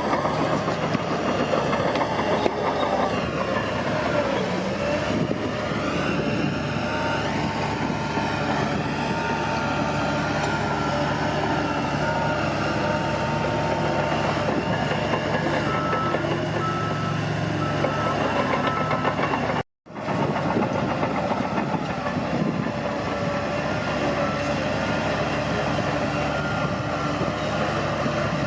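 Bulldozer's diesel engine running steadily under work. The sound cuts out for a moment about two-thirds through.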